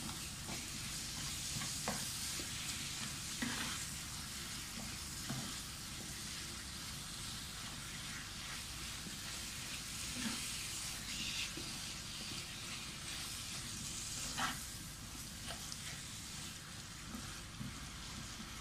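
Minced chicken sizzling as it fries with onions and spices in a non-stick pan, stirred and broken up with a wooden spatula, with a few short scrapes of the spatula against the pan.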